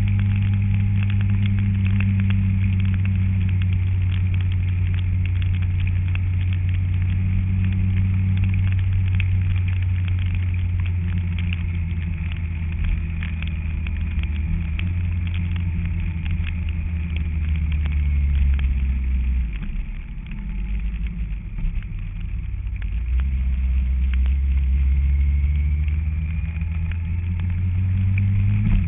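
Kawasaki ZZR1400 motorcycle's inline-four engine running steadily under way. About two-thirds through, the engine note drops and softens briefly, then picks back up.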